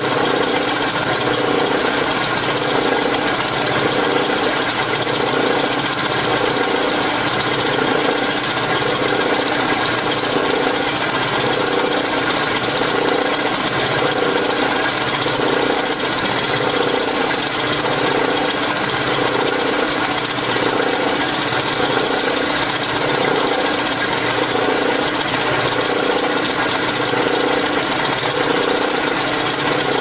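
Belt-driven milling machine running steadily while an end mill takes a slow cut on the end of a small square steel stem, with a regular pulse about once a second.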